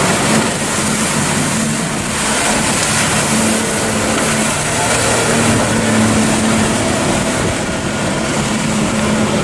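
A boat's engine running steadily, a constant hum over a rushing noise.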